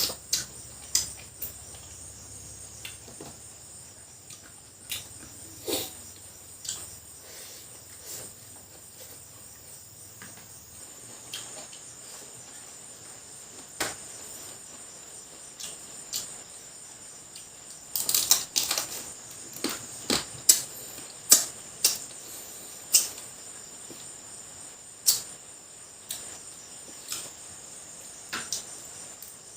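Crickets chirping steadily in the background, with scattered sharp clicks and cracks of crab shell being broken apart while eating, a busier cluster of them about two-thirds of the way through.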